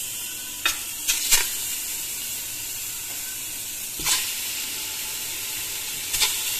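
Pieces of raw mutton on the bone being dropped and placed into an empty aluminium cooking pot, giving about five short knocks against the metal, over a steady hiss.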